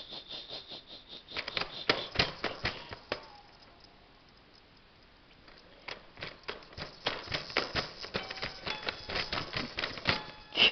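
Rapid plastic clicking and tapping as a baby's feet kick at the keys of a plastic electronic toy piano, in two spells with a quiet pause of a couple of seconds in the middle. A few short electronic tones from the toy sound during the second spell.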